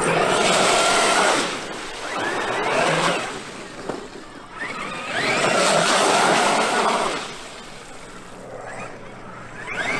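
Traxxas X-Maxx brushless electric RC monster truck driving in repeated bursts, its motor whine rising in pitch as it accelerates, about three runs with quieter gaps between.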